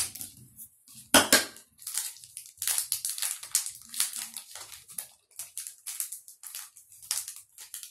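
A foil Pokémon booster pack being cut open with scissors and then handled, its wrapper crackling and crinkling in a run of short, sharp bursts. The loudest crackle comes about a second in.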